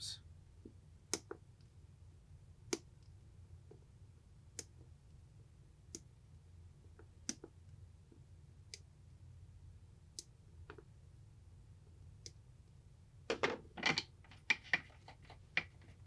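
Flush cutters snipping the excess wire legs of soldered components on a small circuit board: single sharp clicks, one every second or two. Near the end comes a quicker cluster of louder clicks and clatter.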